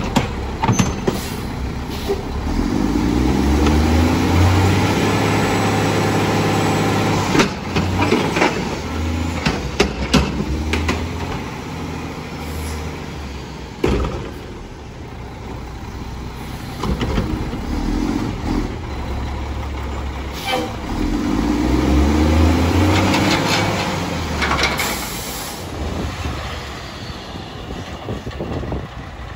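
Mack MR front-loader garbage truck's diesel engine revving hard twice, each time rising in pitch and holding for a few seconds, the high revs that drive the hydraulic lift arms. Between the two revs come several sharp metallic bangs, and a short hiss of air comes near the end.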